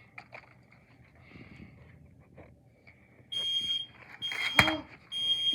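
A smoke alarm going off with a high, shrill tone in short repeated spurts, starting about three seconds in after a few faint clicks of plastic detectors being handled. A brief loud sound with a falling pitch cuts in between the spurts.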